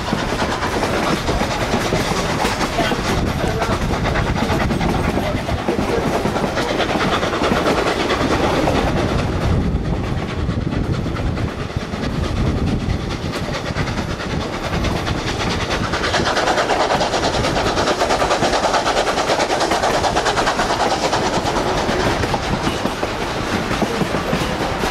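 Narrow-gauge passenger train running along the track, heard from an open coach window: steady running noise of the wheels and cars on the rails.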